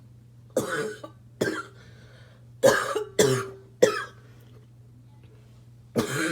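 A smoker's harsh, barking cough in fits. There are two coughs, then three more in quick succession, then a pause of about two seconds before another cough near the end.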